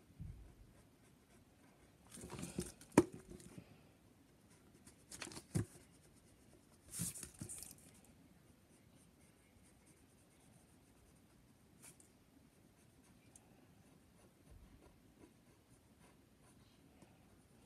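Pencil drawing on paper on a table: faint scratching of the lead, with three louder spells of scratchy noise in the first eight seconds and a sharp click about three seconds in.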